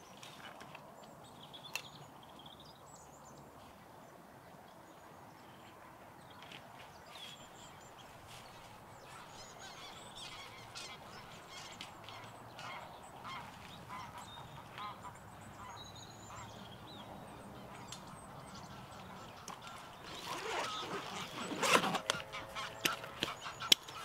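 Geese honking, loudest for a few seconds near the end, over faint small-bird chirps and soft rustling earlier on.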